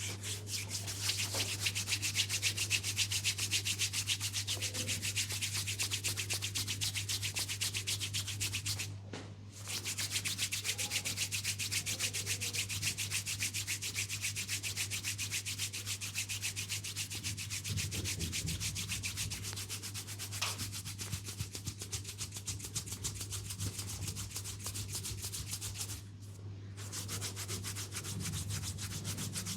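Fast, even rubbing on the skin of an oiled knee during a massage, with two short pauses, one about a third of the way through and one near the end.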